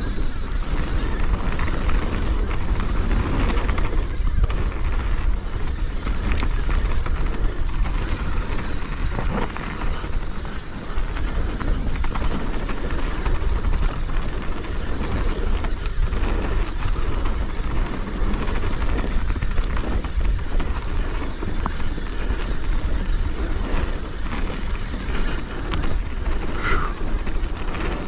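Wind buffeting a helmet- or chest-mounted camera's microphone while a mountain bike rolls fast down a dirt trail, with tyre noise and many short rattles and knocks as the bike goes over bumps.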